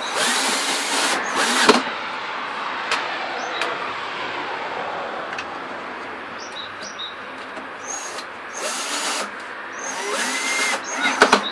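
Cordless drill-driver driving screws into a wooden board in three short runs, each with a rising motor whine and a few sharp clicks as the run ends.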